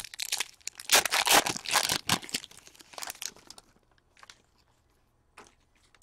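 Foil wrapper of a trading card pack crinkling and tearing as it is opened by hand, a dense rustle for about three and a half seconds, then a few light clicks of cards being handled.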